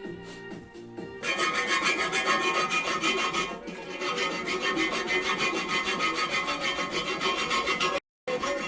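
Small homemade belt grinder running, its abrasive belt grinding against a workpiece with a loud, steady rasp that starts about a second in. It cuts out briefly near the end.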